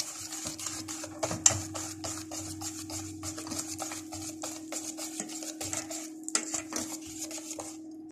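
Cake batter being stirred by hand in a bowl: a utensil scraping and clicking against the bowl in quick, irregular strokes, with a steady hum underneath.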